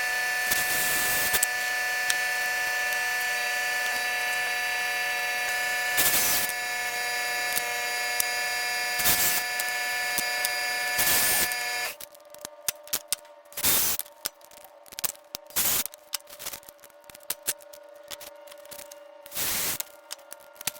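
A power tool works scrap aluminium sheet: its motor runs with a steady whine and hiss for about twelve seconds, with a few brief louder surges as it bites into the metal, then stops suddenly. After that come short, irregular scraping strokes on the metal.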